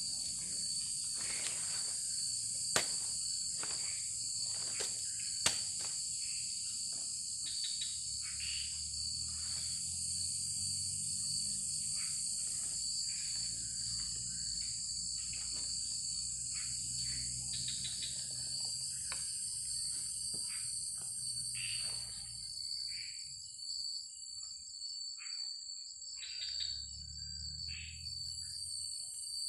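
Steady, high-pitched chorus of insects, with one constant tone held under a wider shrill band. Scattered small knocks run beneath it, and two sharp clicks come about three and five and a half seconds in.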